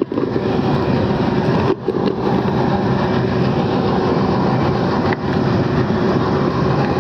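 Rooftop air-conditioning unit running: a loud, steady mechanical drone with a constant hum under it.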